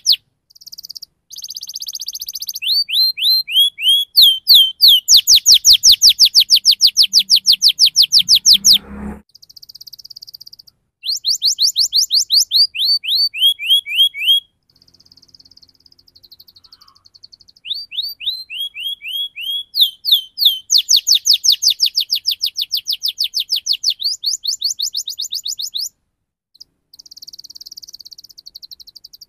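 Domestic canary singing a loud, fast rolling song: long trills of rapid, repeated down-slurred high notes, delivered in several runs separated by short pauses.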